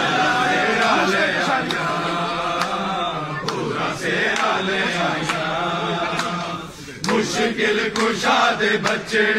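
Crowd of men chanting a devotional Punjabi manqabat together in many overlapping voices, with hand claps; the voices drop briefly about seven seconds in, then come back with denser clapping.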